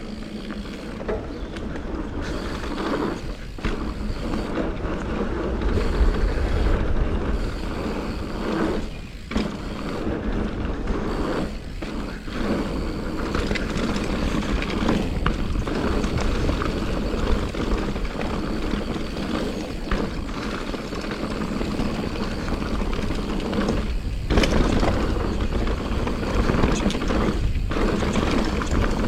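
Santa Cruz Nomad mountain bike being ridden on a dirt trail: steady rushing tyre and wind noise with knocks and rattles from the bike, which falls away briefly a few times.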